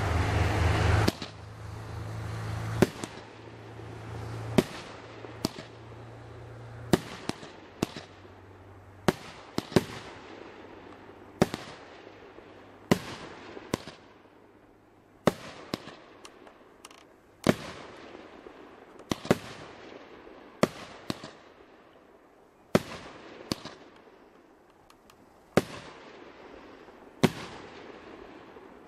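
A 19-shot vertical fireworks cake firing one tube at a time: a sharp report about every second and a half, each followed by a fading hiss. A loud rushing noise with a low hum cuts off about a second in, before the shots begin.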